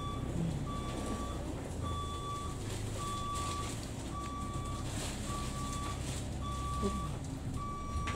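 Bus reversing alarm beeping at a steady pace, about one beep a second, heard from inside a Mercedes-Benz Sprinter minibus over the low hum of its diesel engine as it backs off the stand. The beeping stops at the very end.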